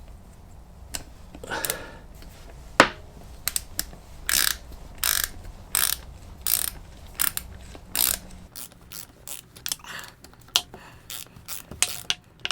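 Socket ratchet wrench clicking as a motorcycle rear wheel bolt is run in: a steady run of strokes, then quicker, lighter clicks after about eight seconds.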